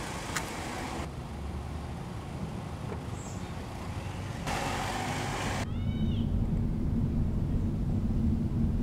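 Car driving along a road, its engine and tyre noise heard from inside the cabin. From about six seconds in, a high wavering wail rises over it and the sound grows louder.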